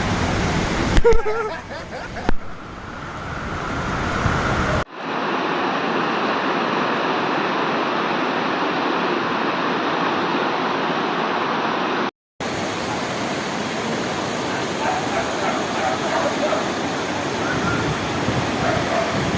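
Steady rushing of water, with the sound changing abruptly a little under five seconds in and dropping out for a moment around twelve seconds.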